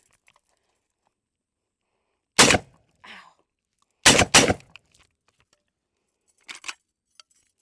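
Kalashnikov USA RS12 semi-automatic 12-gauge shotgun firing 3-inch shells: one loud shot, then two more in quick succession about a second and a half later. A few fainter clicks and knocks follow.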